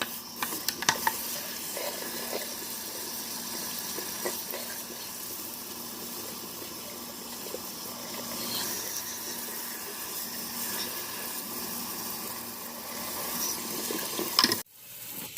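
Water running from a tap and splashing in a sink, with a few light knocks. It cuts off sharply near the end.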